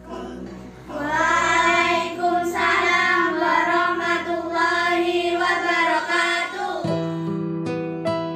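A singing voice holds a slow, wavering melody. From about seven seconds in, acoustic guitar notes take over, picked at a steady pace.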